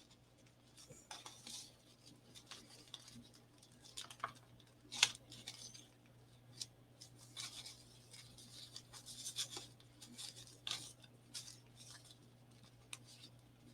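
Faint rustling and scratching of ribbon and paper being handled while a bow is tied, with a few light clicks and taps scattered through, over a faint steady low hum.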